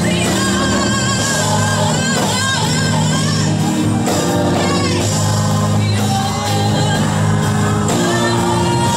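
Choir singing a gospel song through microphones, with keyboard accompaniment holding steady low notes.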